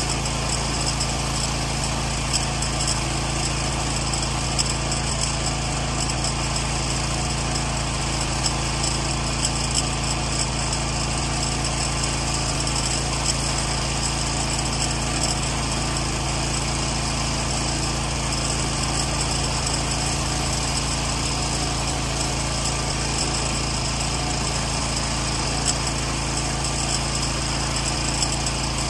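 Pressure washer running steadily while its wand sprays a water jet onto vinyl siding.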